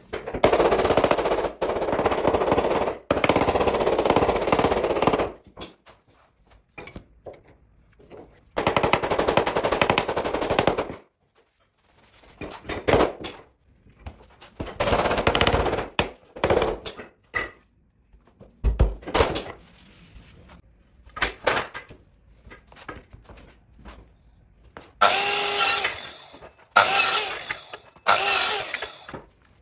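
Power tools working on a parquet floor in repeated bursts, some a rapid rattling, several seconds long, others short. Near the end come three shorter runs with a pitched motor whine.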